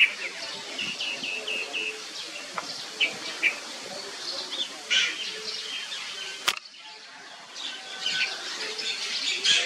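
Outdoor birdsong: birds chirping in the trees, a scatter of short high notes, with one sharp click about six and a half seconds in.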